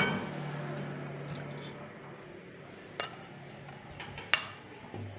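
Kitchen utensils and bowls clinking: two sharp, brief clinks about a second and a half apart.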